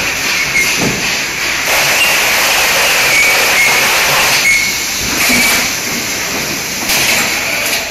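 Automatic carton packing and tape-sealing line running, with a loud hiss that starts about two seconds in and lasts a few seconds while the carton passes through the sealing head, then comes back in shorter spells.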